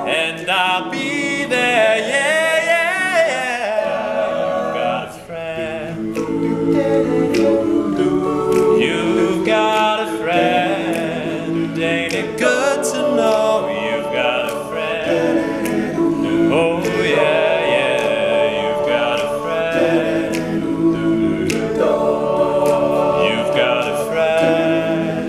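Male a cappella group singing: a lead voice over sustained vocal harmony chords from the group, with no instruments.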